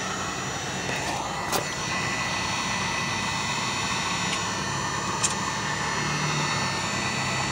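Electric heat gun running steadily, its fan blowing hot air onto window vinyl to soften the adhesive, with two light clicks.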